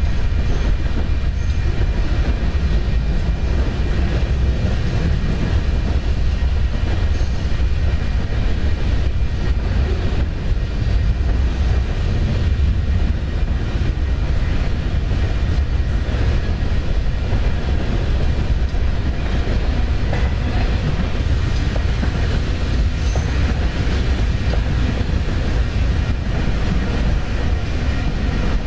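Train passing by: a steady, heavy rumble with most of its energy low down.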